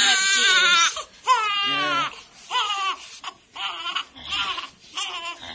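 Newborn baby crying: a long loud wail that breaks off about a second in, then a run of shorter wails, each falling in pitch, that grow briefer and quieter toward the end.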